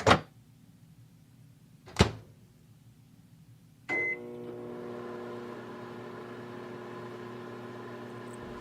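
Two sharp clunks about two seconds apart, then a short beep, and a microwave oven starts running with a steady hum, heating up food.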